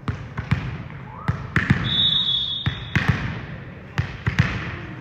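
A volleyball bounced on a gym floor, a string of sharp, irregular thuds with a short echo after each, about nine in all. A brief high-pitched tone sounds about two seconds in.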